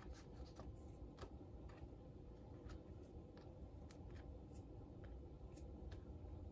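Faint, irregular light clicks and rustles of trading cards being handled and slid into rigid plastic card savers, over a quiet room.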